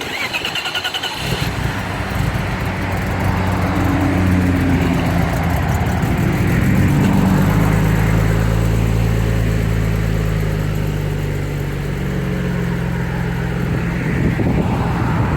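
Car engine cranked by its starter for about a second, catching and then running at a steady idle. The start comes from a car with a good battery, beside another car whose battery is flat.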